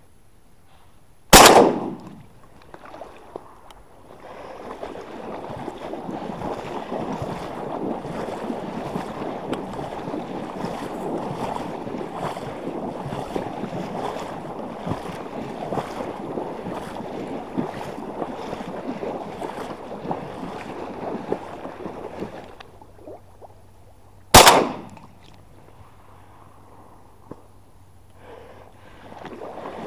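Two shotgun shots, one just over a second in and another about twenty-three seconds later. Between them, a long stretch of steady splashing and sloshing of water.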